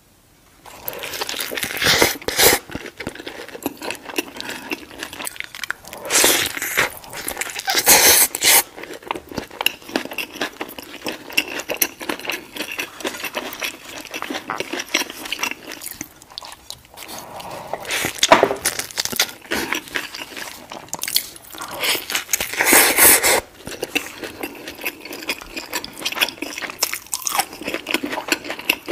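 A person biting and chewing a meat-and-rice burrito in a flour tortilla, with crunchy chewing throughout and five or so louder bites spread through.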